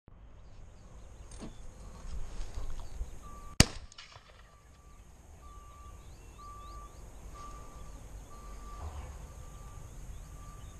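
A single shotgun shot about three and a half seconds in, sharp and much louder than anything else, over a low rumble of wind and rustling in the hide.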